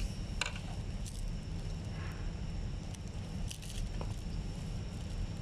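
A few light, sharp plastic clicks and taps as a pry tool works at the air-vent housing of a Mercedes W213 E-Class dashboard vent panel. Under them runs a steady low hum with a faint high whine.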